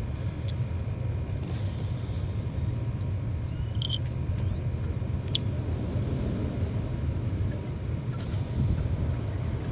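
Steady low rumble with a few small, sharp clicks as crimped terminal pins are pushed into a plastic coil pack connector housing.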